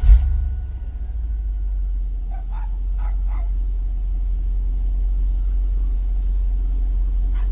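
Cadillac Escalade's 5.7-litre V8 comes up loudly at the very start, then settles into a steady low-rumbling idle, running again after a new distributor cap and rotor cured its crank-no-start. A dog barks a few times in the background in the second and third seconds.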